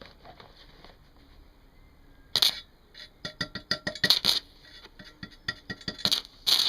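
Stick-welding arc powered by three 12-volt car batteries in series (36 volts). After about two seconds of quiet, the electrode is struck and the arc crackles and sputters in short, irregular bursts as it catches and breaks, settling into a steadier crackle at the very end.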